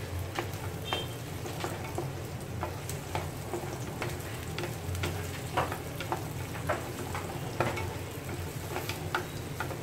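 Chopped red onions sautéing in a nonstick frying pan, a steady sizzle, stirred and tossed with two wooden spatulas that tap and scrape against the pan many times.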